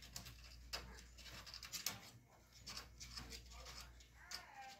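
Kittens scratching and digging in sand litter in a plastic litter tray: faint, irregular scratchy rasps and clicks.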